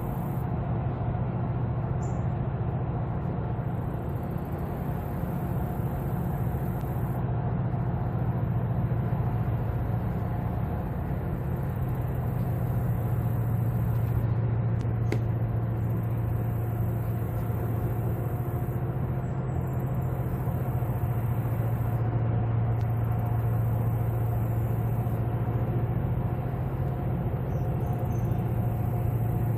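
Towboat's diesel engines running under load while pushing a large barge tow: a steady, even low drone that does not let up.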